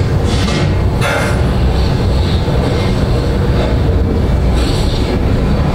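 Loud steady low rumble with swells of hiss rising and falling every second or so.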